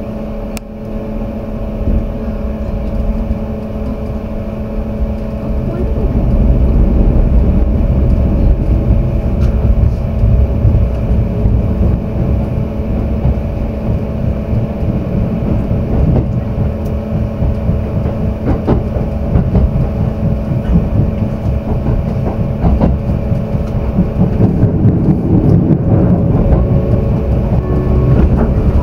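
Running noise heard inside a Kintetsu Vista Car double-decker limited express: a steady low rumble with a faint hum and occasional clicks from the wheels. The rumble grows louder about six seconds in.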